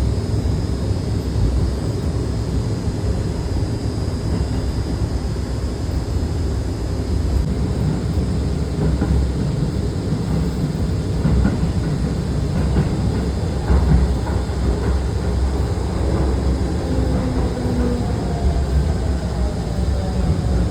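Shibayama Railway 3600-series electric train running, a steady low rumble of the moving train. Over the last few seconds the whine of its Toyo GTO VVVF inverter falls in pitch as the train decelerates.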